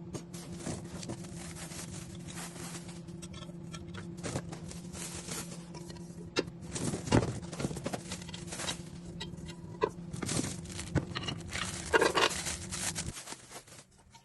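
Handling noises from unpacking cookware: rustling packaging with scattered sharp clicks and knocks, busier in the second half. A steady low hum runs underneath and stops near the end.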